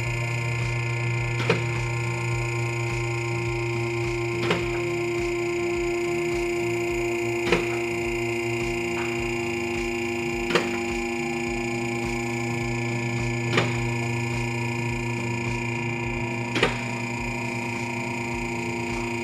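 Rotary two-post car lift's electric hydraulic pump motor running with a steady whine as it raises a car, the lift's safety locks clacking into place about every three seconds.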